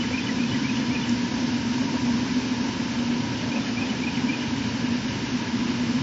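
Steady low hum over a constant rushing background, engine-like, with a few faint high chirps near the start and about four seconds in.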